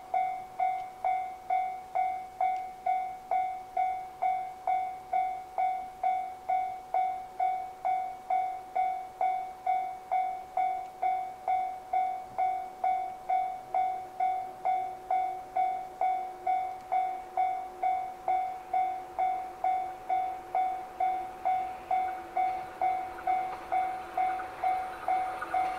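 Railway level-crossing warning bell ringing steadily at about two strikes a second, each strike a clear ringing tone that dies away. Near the end the running noise of the approaching 115 series electric train rises beneath it.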